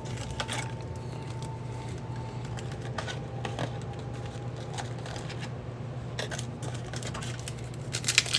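Small scattered clicks and taps of trading cards and card holders being handled, over a steady low hum. Near the end, crinkling of a foil card pack as it is torn open.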